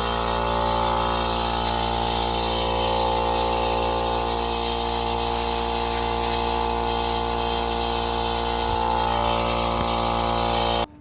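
Air compressor running steadily with a constant motor hum as it fills its tank, then shutting off abruptly on its own near the end.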